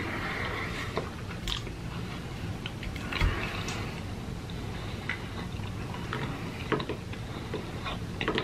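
Close-miked chewing of steak and french fries: wet mouth sounds with scattered small clicks and one brief low thump about three seconds in.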